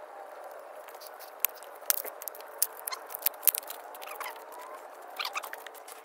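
Small campfire of dry twigs crackling, a scatter of sharp pops and snaps over a steady hiss, densest in the middle, as sticks are pushed into the flames.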